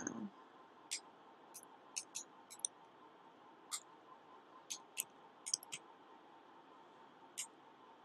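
Computer keyboard keystrokes: about a dozen short, sharp clicks at an uneven pace, some single and some in quick runs of two or three, with pauses of a second or more between them, over a faint steady hiss.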